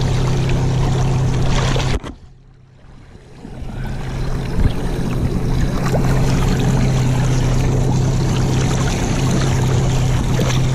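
A boat's motor hums steadily at trolling speed, with water splashing at the side of the hull. The sound drops almost out for about a second and a half around two seconds in, then comes back.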